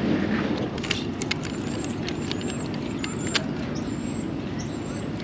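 Steady wind rumble on a chest-worn action-camera microphone, with a run of small clicks and taps between about one and three and a half seconds in as a small tripod and camera are handled.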